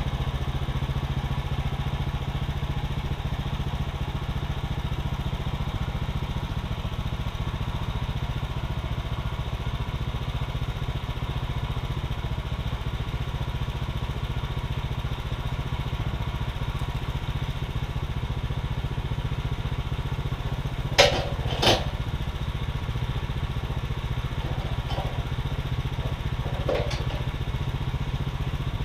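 Gas engine of a Woodland Mills bandsaw mill running steadily at idle, with the saw head standing still. Two sharp knocks come close together a little past two-thirds of the way through, then two fainter ones.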